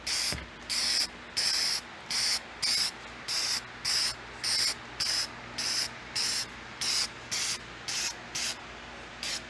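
Aerosol can of automotive primer sprayed in short hissing bursts, about one and a half a second, more than a dozen in all.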